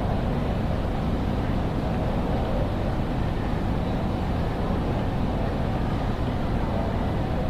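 Steady background din of a large railway station hall: an even low hum with no distinct events.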